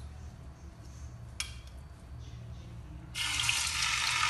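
A piece of raw chicken laid into hot oil in a nonstick frying pan starts sizzling and crackling suddenly about three seconds in, after a quiet stretch with one small click. The chicken is being pan-fried briefly to brown it.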